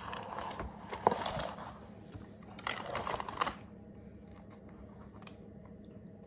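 A spoon scraping and spreading cake batter in a cake tin: two short bouts of scraping of about a second each, the second starting near the three-second mark, then only faint occasional clicks.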